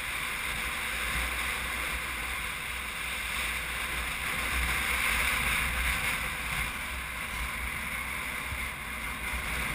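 Steady wind rushing and buffeting over an action-camera microphone, a continuous hiss with a low rumble underneath.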